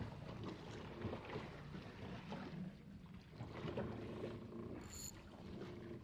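Water lapping and slapping against the hull of a small boat drifting at sea, with wind and scattered light knocks. A brief high-pitched chirp sounds about five seconds in.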